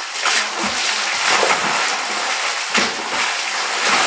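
African elephant splashing and rolling in a muddy waterhole: a run of heavy sloshing splashes of mud and water, with louder surges about a second in, near three seconds and at the end.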